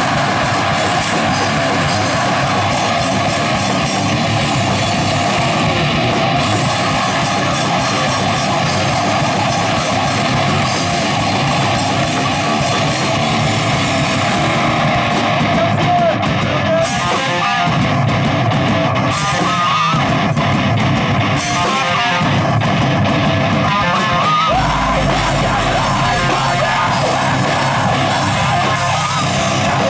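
Heavy metal band playing live, electric guitars loud and unbroken throughout.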